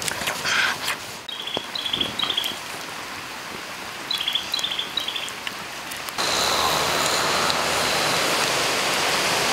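A small bird chirps in two short runs of quick high notes. About six seconds in, the sound cuts to a steady rush of flowing river water.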